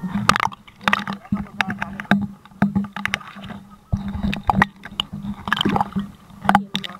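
Water splashing and gurgling around a waterproof camera bobbing at the sea surface, in irregular short splashes, over a steady low hum.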